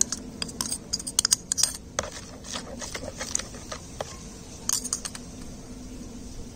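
A steel spoon clicking and scraping against a ceramic bowl as turmeric-and-lime paste is scraped out, then stirring it into water in a plastic tub. A quick run of light clicks in the first two seconds and another short cluster of clicks near the end.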